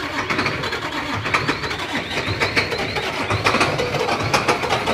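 A heavy engine running steadily, with many sharp knocks or clanks and a run of short, high squeaks over it.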